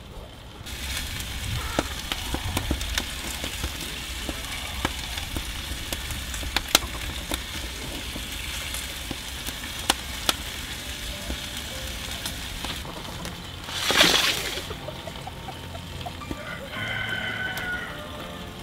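Wood fire crackling in a brick wood-fired oven: a steady hiss with scattered sharp pops and snaps. A short loud rush comes about fourteen seconds in, and pitched tones come in near the end.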